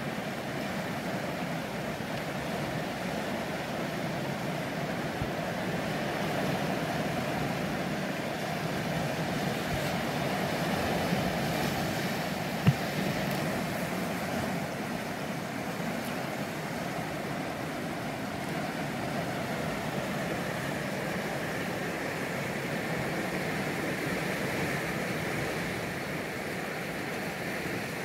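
Ocean surf washing in and out over a rocky shoreline, a steady rushing wash. A single sharp click sounds about halfway through.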